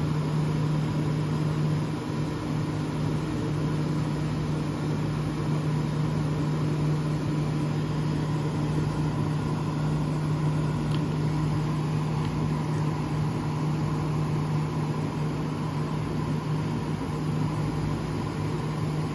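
1970 Signature 6,000 BTU window air conditioner running on its high fan setting: a steady motor hum under a constant rush of air.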